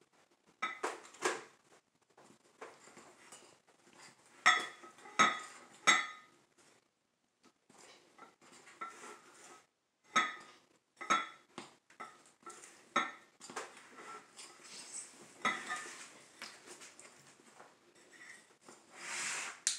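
A metal utensil clinking and scraping against a glass mixing bowl as a thick sugar-and-butter icing is stirred by hand: irregular strikes, many with a short glassy ring, with a quiet pause about seven seconds in and a longer scrape near the end.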